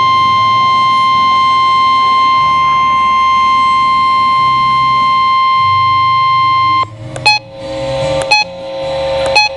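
NOAA Weather Radio 1050 Hz warning alert tone, one steady tone signalling a warning, cuts off about seven seconds in. It gives way to radio hiss and a low hum with three short clicks about a second apart.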